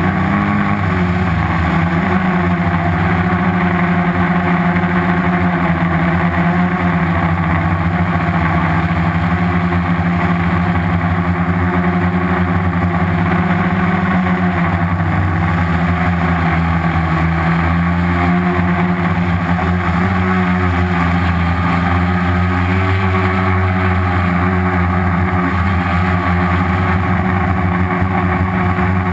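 Homemade quadcopter's four Turnigy 2217 1050kv brushless outrunner motors spinning 10x4.5 slow-fly propellers in flight, heard from the GoPro on board: a steady hum of several tones that shift a little in pitch as the motors change speed.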